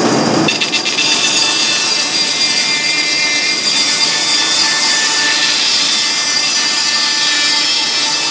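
Bandsaw running and cutting notches into a wooden clamp-rack board. A steady machine whine runs over the noise of the cut, and the lower rumble drops away about half a second in.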